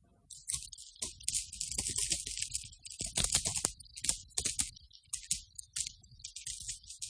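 Heavy metal chain being handled, its links clinking and rattling against each other in irregular jingling bursts, densest around the middle.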